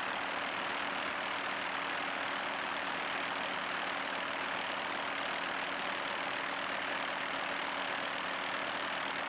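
Helicopter in flight: a steady, even rush of engine and rotor noise with a low hum underneath.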